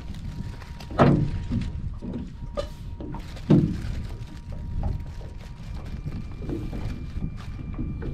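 Steady wind and water noise around a small open boat, with two sharp loud knocks, one about a second in and another about three and a half seconds in, and a few softer knocks between.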